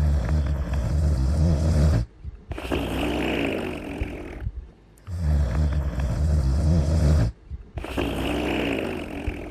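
Cartoon character snoring in a repeating cycle: a loud, low snore, then after a short break a softer, higher-pitched breathy snore. The cycle runs twice, with brief pauses between the phases.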